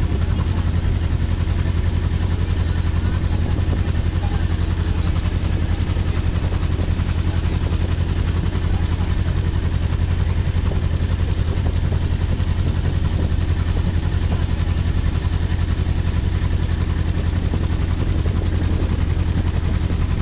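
Tour boat's engine running at a steady speed: a low, even drone with a fast pulse that holds unchanged.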